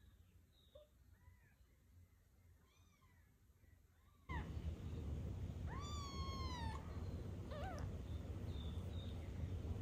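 Newborn kitten mewing: faint high cries at first, then two louder, high, falling cries about six and eight seconds in. A steady low hum of background noise runs underneath.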